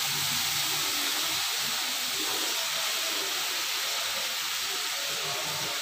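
Chunks of raw green banana, just added to a pan of hot mustard oil and fried onion-garlic masala, sizzling with a steady hiss.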